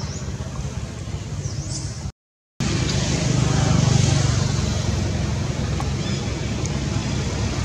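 Steady low outdoor rumble that swells a little about four seconds in, broken by a brief total silence about two seconds in where the footage cuts. A short high chirp sounds at the very start.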